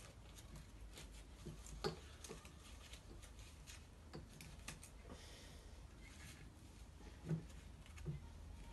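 Piston rings being worked around a Ford Dorset engine piston by hand: faint metallic clicks and light scraping, with a few sharper clicks scattered through, over a low steady hum.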